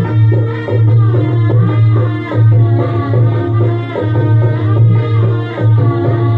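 Instrumental interlude of a Marathi song: a steady drum rhythm with a gliding melody line above it, no singing.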